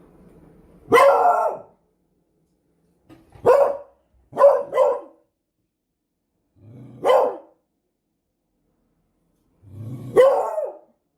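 Beagle barking: six single barks spaced a few seconds apart, two of them coming back to back about four and a half seconds in.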